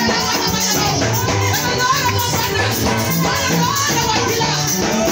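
Live gospel praise music played at full volume by a band with electric guitar, drum kit and a stepping bass line, with a woman singing over it into a microphone.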